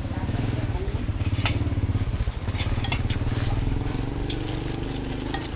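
A small engine running steadily at idle, with a low pulsing hum, and now and then the light clink of a metal spoon and chopsticks against a ceramic bowl.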